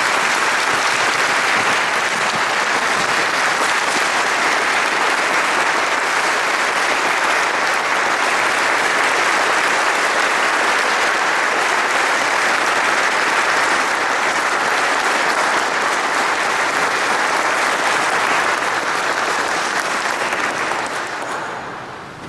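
Audience applauding: steady, dense clapping that holds for about twenty seconds, then dies away near the end.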